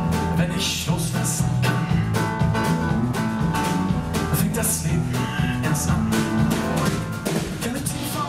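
Live band playing a song on piano, electric bass guitar and drum kit, with a steady drum beat under sustained bass notes.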